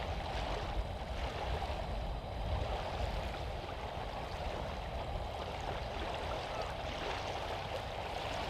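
Steady wind buffeting the microphone, with small estuary waves lapping at the shingle shore as a continuous hiss.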